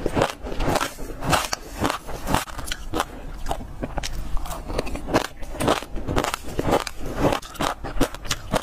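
Passion fruit seeds being bitten and chewed, close to a clip-on microphone: many irregular, crisp crunches and crackles, several a second.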